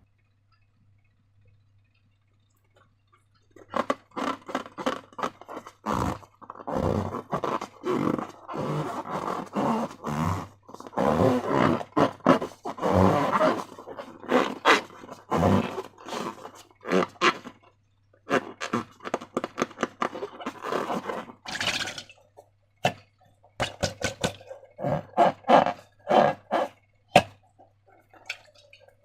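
Slime being squished and stretched by hand: an irregular run of wet squelches and sticky clicks, starting after about three and a half seconds of quiet, with a few sharper snaps.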